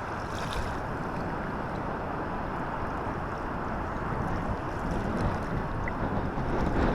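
Steady rushing wind noise buffeting the microphone, growing a little stronger in the last few seconds.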